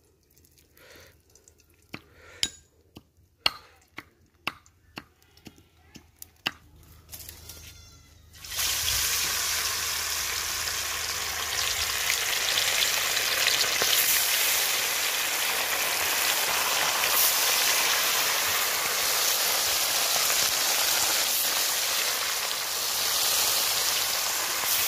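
Pieces of red snapper frying in hot oil in a wok: after a few faint scattered clicks, a loud steady sizzle starts suddenly about eight seconds in as the fish goes into the oil, and keeps on as more pieces are dropped in.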